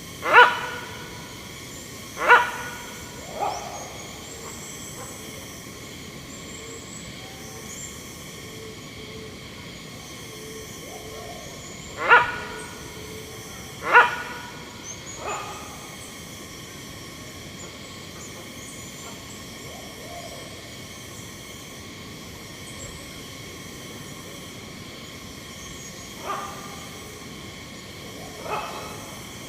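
Hornbill calling: short, loud calls, each a quick falling note, given in spaced groups of one to three. Under them runs a steady background of ambient wildlife sound with faint high chirps.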